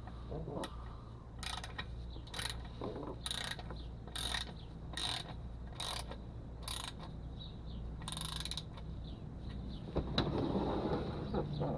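Ratchet wrench clicking on its back-swings while a transmission pan bolt is snugged down. There are seven short ratchet runs about a second apart, then a longer one about eight seconds in. Near the end comes a busier patch of knocks and rubbing.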